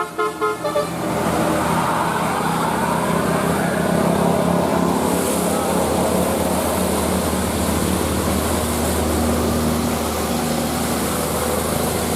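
A multi-note telolet musical horn tune ends about a second in. After it comes the steady running of a vehicle's engine with road noise, with a faint rising whine a couple of seconds in.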